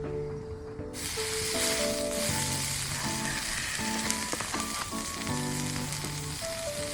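A thick piece of food laid on a hot pan about a second in, then sizzling steadily as it fries. Background music plays throughout.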